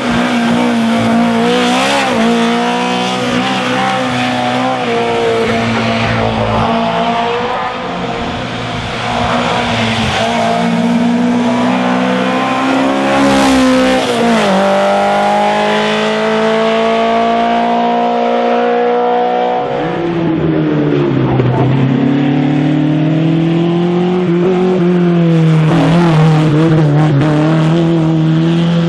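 Race touring car engines at full throttle on a hillclimb: an NSU TT revs hard past and away, with a sharp drop in pitch about halfway through at a gear change. A second car's engine then comes up about two-thirds of the way in, climbing and wavering as it is driven hard.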